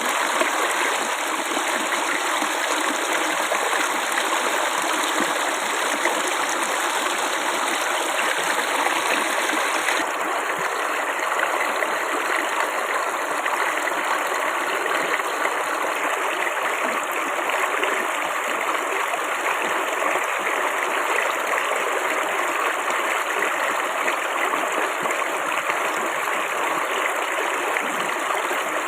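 Flowing water babbling steadily, a constant splashing rush with no breaks.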